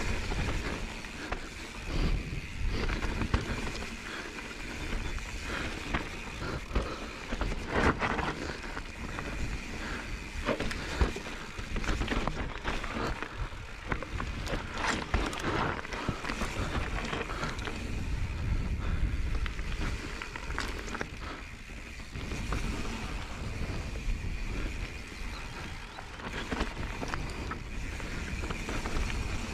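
Mountain bike riding fast down a dirt and rocky singletrack: tyres rolling over earth and loose stones, with frequent knocks and rattles from the bike, and wind on the microphone as a low rumble.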